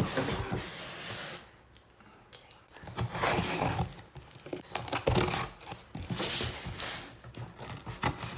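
Scissors cutting and tearing open a cardboard package, in several noisy bursts of ripping with short pauses between them.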